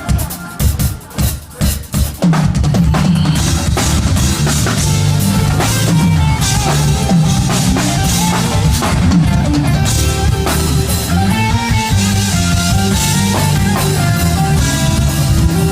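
A live band plays with a drum kit, bass and melodic instruments. A short break of separate drum hits comes first; the full band comes back in about two seconds in.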